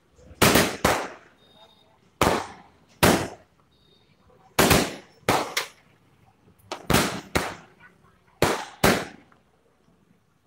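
A '12 star' multi-shot aerial firework firing its glowing green stars one after another: about a dozen sharp bangs at uneven intervals, several in quick pairs, each dying away within a fraction of a second.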